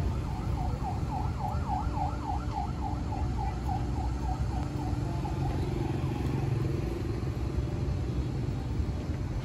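A distant siren wailing rapidly up and down, about three or four swings a second, fading out about halfway through, over the steady low rumble of street traffic.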